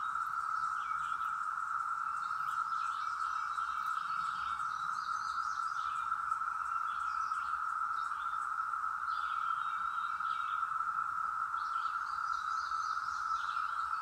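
Chorus of Brood X periodical cicadas (Magicicada) in the trees, singing their mating call: a steady, unbroken hum at one pitch. Short chirps come and go over it.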